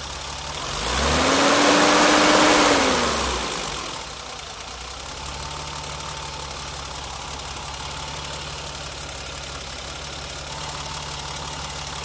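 BMW 325i E30's 2.5-litre straight-six engine running. It is revved once about a second in, rising and falling back to idle within about three seconds, then idles steadily.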